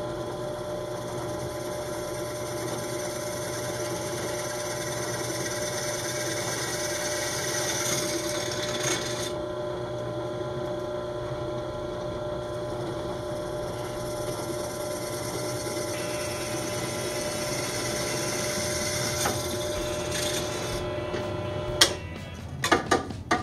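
Benchtop drill press motor running with a steady hum as the bit drills into a fiberglass rocket body tube, with a brighter grinding hiss about eight and nineteen seconds in. Near the end the hum cuts off and a few sharp clicks follow.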